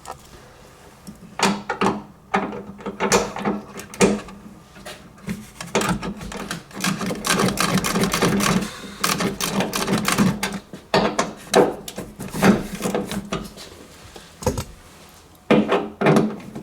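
Ratchet with an 8 mm socket clicking in repeated bursts of rapid clicks as bolts are backed out, with a long stretch of near-continuous ratcheting in the middle.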